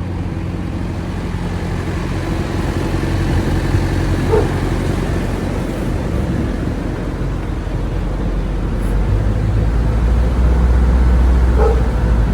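A motor runs with a steady low hum that grows stronger about nine seconds in, with two brief faint squeaks along the way.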